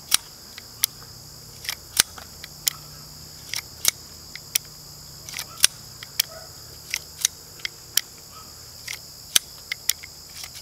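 Heritage Rough Rider .22 LR single-action revolver being unloaded at half cock: a string of sharp, irregular metallic clicks as the cylinder is turned and the spent cases are pushed out with the ejector rod. Insects chirr steadily behind.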